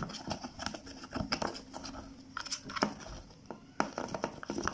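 A metal spoon stirring a wet cornstarch, honey and cucumber-juice paste in a small plastic cup, with irregular soft clicks and scrapes of the spoon against the cup.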